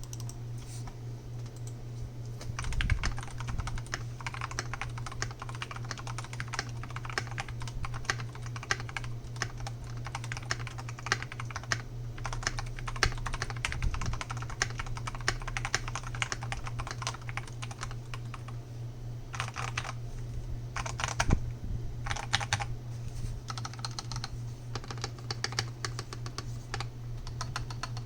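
TM680 mechanical keyboard with Zealios V2 tactile switches, Akko keycaps and band-aid-modded stabilizers being typed on fast, a thocky run of keystrokes. The typing starts a couple of seconds in, pauses briefly about two-thirds of the way through, then resumes with a few heavier strokes.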